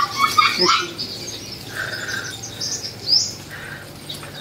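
Caged sunbirds chirping: short, high calls and a few quick rising notes, busiest in the first second.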